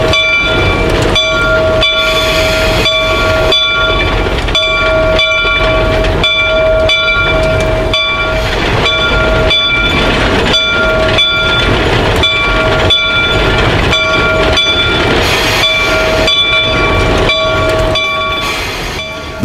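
Shay geared steam locomotive working slowly, with a steady beat about twice a second and a steady high tone held throughout.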